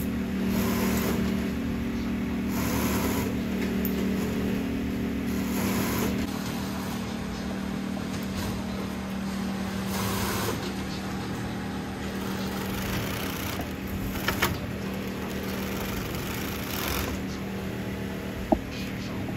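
Steady hum of shoe-factory workshop machinery, with short hissing swells every few seconds and a sharp click near the end.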